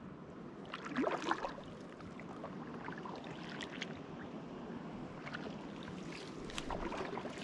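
Lake water sloshing and splashing around a person wading among rocks, with scattered small splashes and knocks; a louder cluster comes about a second in and again near the end.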